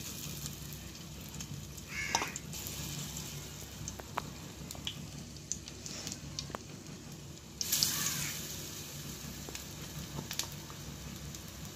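Batter-coated brinjal slices frying in hot oil in a pan: a steady sizzle with small crackling pops, swelling louder briefly about two seconds in and again about eight seconds in.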